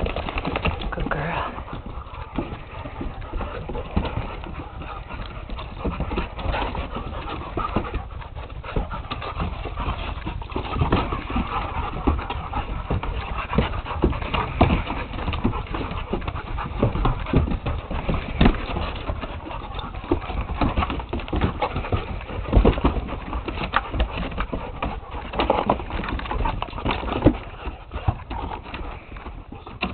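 A Pit Bull and a Labradoodle play-fighting: a steady, irregular run of scuffles and knocks mixed with the dogs' own noises.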